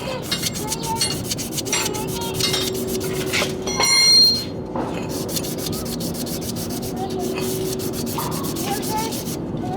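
Glazed rear drum-brake shoe lining being scuffed by hand with an abrasive: quick, repeated scraping strokes that break the glaze so the brake grips the drum. About four seconds in, a short high-pitched squeak stands out.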